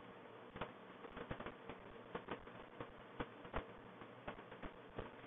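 Faint, irregular clicking from a computer mouse, about three clicks a second, over a low steady hum.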